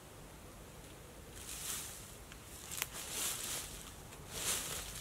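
Rustling in three short bursts as camping gear is handled, with one sharp click about three seconds in.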